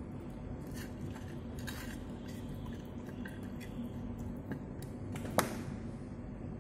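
A cat eating food off a tiled floor: scattered small chewing and licking clicks, with one sharp click about five seconds in.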